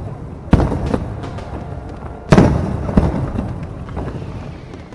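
Aerial firework shells bursting in a display: three sharp bangs, about half a second in, at about two and a quarter seconds and again just after, each trailing off in a low rumble.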